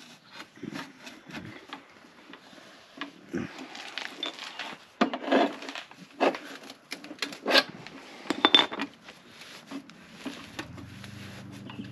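Ceramic packing material being stuffed and pressed into a cut-open steel Flowmaster muffler case: irregular rubbing, scraping and light knocks of handling, loudest in the middle. A low steady hum sets in near the end.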